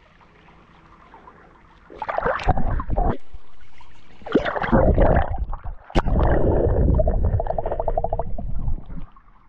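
Creek water sloshing and gurgling over an action camera dipped below and at the surface, heard as muffled rushing with a heavy low rumble in three loud stretches after a quieter start. There is a sharp knock about six seconds in and quick bubbling near the end.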